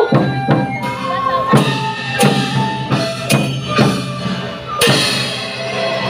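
Taiwanese opera (gezaixi) stage music: sharp drum and wood-block strikes at an uneven pace, every half second to a second, over held notes of a melody instrument.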